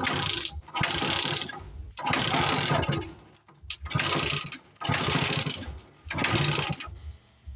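Suzuki TF125 two-stroke engine on its first startup after being rewired with CG 150 parts: six loud bursts of engine noise, with low, uneven pulsing between them.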